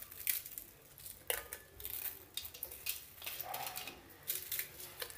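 Soda crackers being put into a glass blender jar: scattered light clicks, taps and crackling as the pieces are handled and land against the glass.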